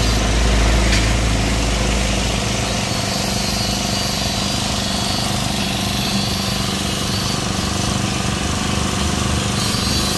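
Small single-cylinder four-stroke engine of a Yamakoyo BG435 brush cutter running steadily at idle. A deeper rumble underlies it for the first three seconds.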